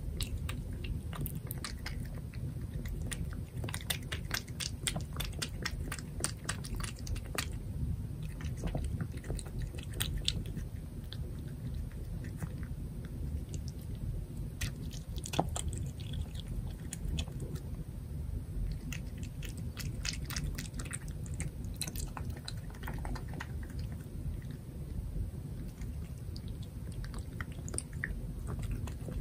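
Russian Blue cat eating soft wet food from a plate, chewing and licking with a quick, irregular run of small wet clicks and smacks.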